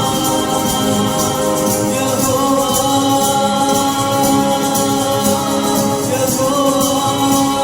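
Christian worship song: singing over held instrumental chords with a steady tambourine beat.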